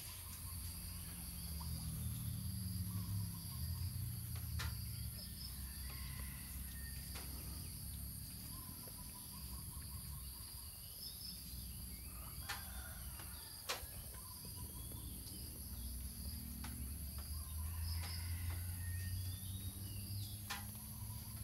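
Quiet outdoor ambience: a steady high-pitched insect drone with a few faint bird chirps. There are scattered soft clicks, and a low rumble swells near the start and again near the end while a puppy clambers onto a lap.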